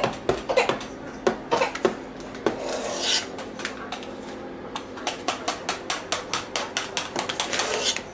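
Metal spoons scraping a stainless-steel mixing bowl and clicking against plastic cups as ice-cream mixture is spooned in. Near the end comes a quick run of light taps, several a second.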